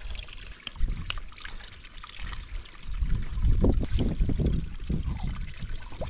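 A small stream trickling and pouring, from which a thirsty hiker is getting water. From about three seconds in, heavy low rumbling thuds sit close on the microphone.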